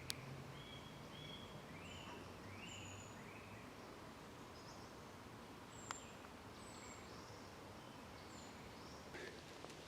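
Faint wild birdsong: a quick run of short chirps in the first three seconds, then a few thin, very high, falling notes later on. A single sharp tick sounds about six seconds in.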